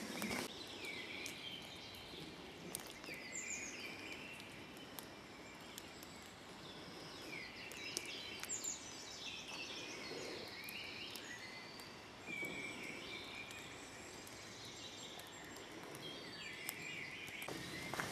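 Woodland birds singing: short falling whistled phrases from several birds, repeating every few seconds over faint outdoor hiss.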